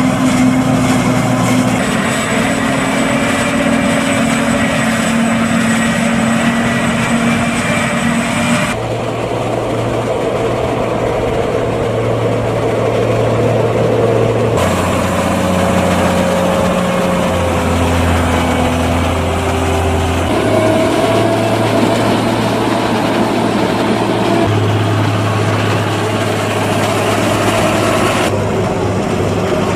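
Heavy diesel farm machinery, a forage harvester and tractors, running steadily while chopping maize. The low engine hum changes pitch abruptly several times as the scene switches between machines.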